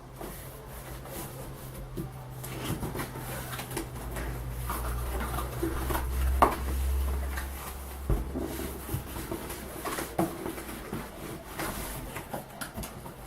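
Objects being handled: scattered knocks, clicks and rustles, with one sharp knock about six seconds in, over a low steady hum.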